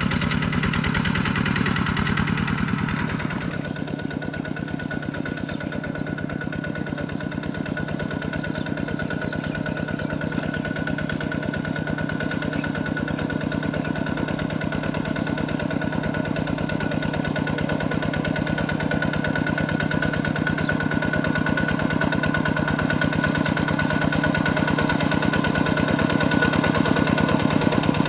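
Kubota RT140 single-cylinder diesel engine of a two-wheel walking tractor running steadily under load as its cage wheels plow through wet paddy mud. It grows louder near the end as the tractor comes closer.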